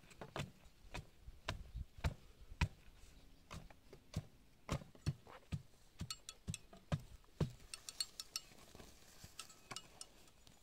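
A wooden stake knocking and thudding as it tamps soil around a bamboo post, in irregular strokes about one or two a second. Near the end the strokes give way to lighter, sharper ticks.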